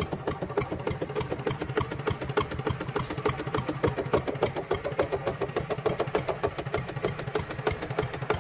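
Small motor and gearbox of an RC model tractor running steadily with a fast, even clatter while it pulls a disc plough through soil.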